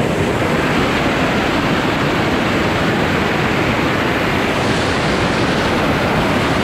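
Steady, loud rush of wind and road noise from travelling in a vehicle, with a constant low rumble.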